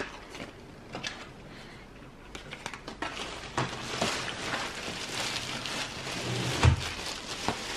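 Paper packaging rustling and crinkling as a boxed item wrapped in tissue paper is handled. It starts with scattered crackles, turns to steady crinkling about three and a half seconds in, and has a dull thump near the end.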